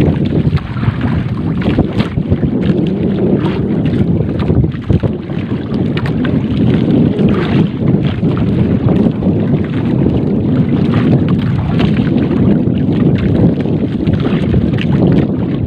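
Wind buffeting the microphone over a steady low rumble on a small fishing boat, with scattered light ticks and splashes as a three-ply net is hauled in by hand over the boat's side rail.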